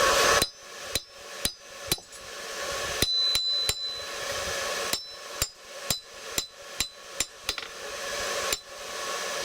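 Hand hammer striking hot steel on an anvil in uneven runs of blows, each with a short, high metallic ring, as a J hook is forged.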